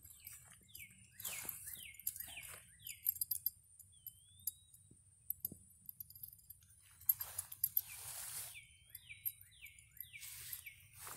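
A songbird singing runs of four or five clear whistled notes, each sliding down, about two a second, heard twice: early, and again near the end, with a single rising whistle between. In the middle, footsteps and rustling in grass with a few sharp clicks.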